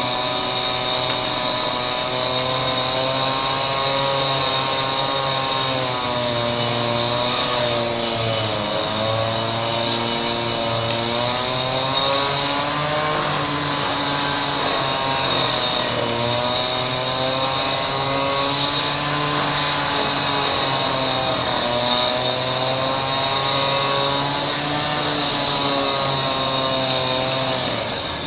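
Concrete saw cutting through a stone floor: a steady high whine with a hiss of blade on stone, its pitch sagging and recovering several times as the blade bites under load, most deeply twice. The sound cuts off abruptly at the end.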